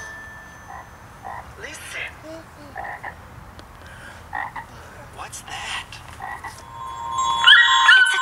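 Frogs croaking in short, irregular calls spaced about half a second to a second apart. Music with sliding tones comes in near the end.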